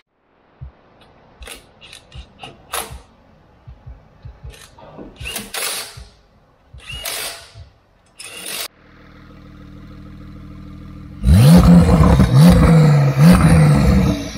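Scattered clicks and short knocks, then a steady low hum from about halfway. Near the end, a Porsche 992's flat-six, breathing through a straight-through IPE full exhaust, is revved hard three times, each rev rising and falling quickly.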